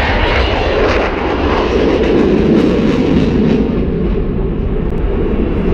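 Fighter jet's engines heard loud and steady from the ground during a display pass, a continuous rumbling jet noise.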